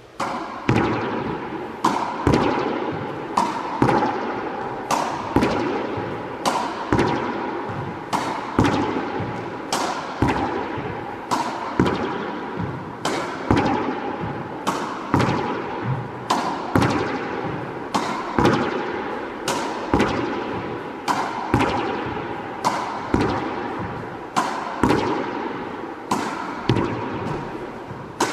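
Tennis ball practice against a wall: a steady run of sharp smacks as the racket strikes the ball and the ball hits the wall and bounces off the floor, one or two impacts every second. Each impact echoes in the bare, hard-walled court.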